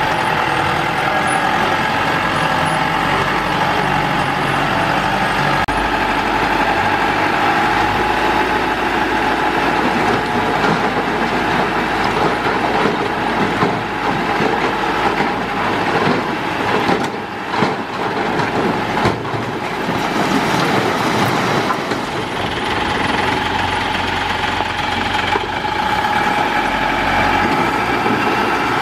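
Thaco Forland dump truck's diesel engine running steadily as its hydraulic hoist tips the bed up, with soil and rocks sliding and tumbling off the back about halfway through.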